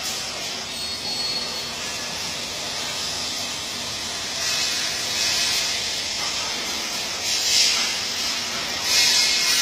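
MIG welding arc hissing steadily, swelling louder several times.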